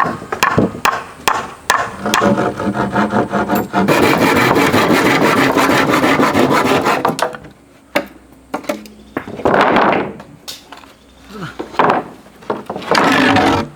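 Wood being worked with a hand tool: a run of short scraping strokes, then about three seconds of continuous rasping, and two shorter rasps near the end.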